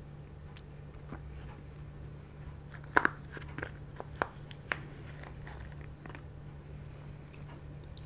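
A plastic spoon scraping and clicking against a foil tin as chocolate lava cake is scooped out, with a handful of sharp clicks between about three and five seconds in, the first the loudest. Faint chewing and mouth sounds run alongside.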